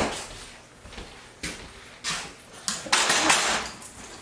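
A refrigerator door thumps shut, then a few short bursts of scraping and clatter as a saucepan is worked on the stove, the longest and loudest about three seconds in.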